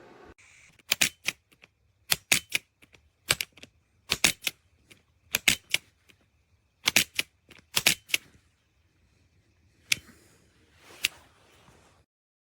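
Sharp mechanical clicks from an ASG Dan Wesson 715 pellet revolver's action, in quick groups of two or three about every second and a quarter, then two single clicks near the end.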